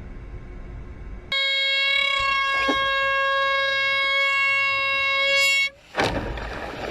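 A single long horn blast of about four seconds, one steady pitch rich in overtones, typical of an air horn. It starts and stops abruptly, and a sudden burst of noise follows near the end.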